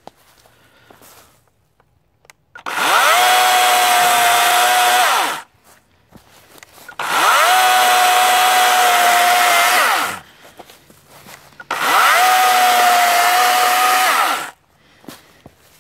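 WEN 40-volt brushless cordless chainsaw (model 40417) run in three bursts of about three seconds each. Each time the motor and chain whine quickly up to a steady high pitch, hold, then spin down.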